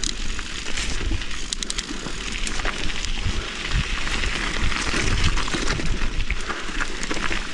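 Mountain bike riding over rough ground: a steady rumble and crunch of tyres on dirt and gravel, with scattered knocks and rattles from the bike and wind on the microphone.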